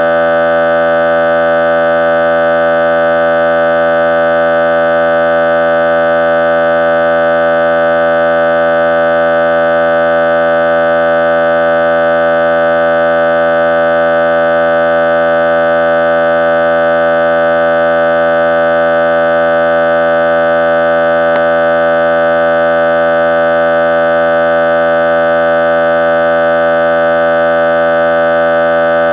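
A loud, unchanging buzzing tone made of many steady pitches held together, with no rise, fall or break.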